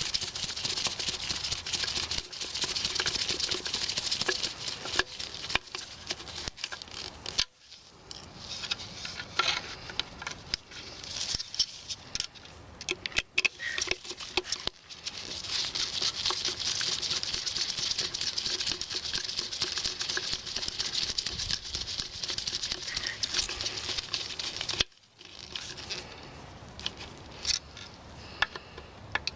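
Scratchy, clicking handling noises as the two screws holding the plastic cover onto a fog light housing are tightened down. The sound drops out briefly twice.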